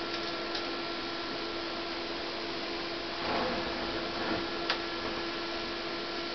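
Steady electrical hum with a held tone. About three seconds in comes a short scraping rustle as the heavy rock is turned on the wooden desk, and a small click follows just over a second later.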